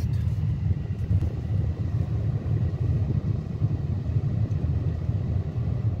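Steady low rumble of a car driving along, heard from inside the cabin.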